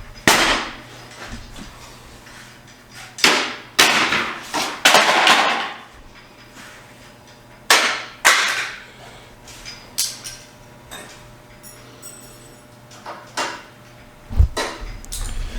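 Irregular knocks, clatters and scrapes of hand work on plastic and metal bumper parts: about nine sharp hits, some trailing off for up to a second, with short quiet gaps between.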